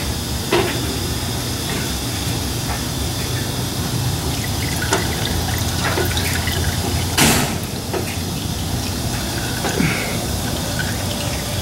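Engine oil dribbling out as the Skyactiv 2.0 engine's oil filter is unscrewed by hand, with small knocks and scrapes of handling and one sharper clack about seven seconds in, over a steady low rumble.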